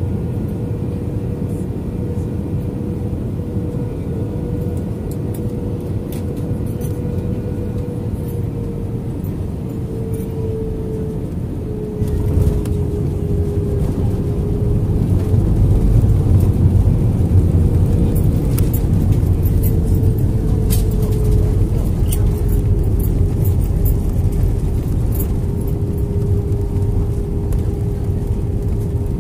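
Airbus A320-200 cabin noise over the wing during landing: a steady engine hum with one held tone, then touchdown about twelve seconds in with a sudden jump in noise. After it the spoilers are up and reverse thrust is engaged, and a heavier rumble of reversers and runway builds, then eases near the end.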